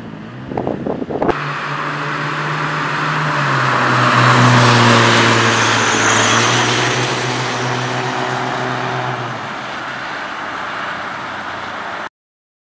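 A car drives past on wet asphalt: tyre hiss swells and fades over a steady engine hum that drops a little in pitch as it passes. A few knocks come in the first second, and the sound cuts off abruptly near the end.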